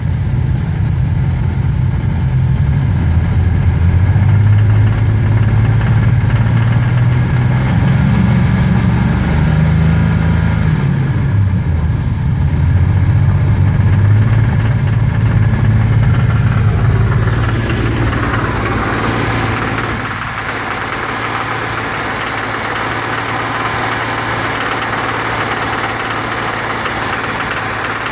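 BMW M30 straight-six engine running with a knocking, rattling noise that the owner hears at about 2500 rpm and cannot place. About two-thirds of the way through, the deep drone fades and a higher, thinner noise takes over.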